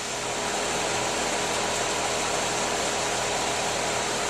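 Outdoor air-conditioner condensing unit running: a steady rush of fan air over a low compressor hum with a steady tone in it.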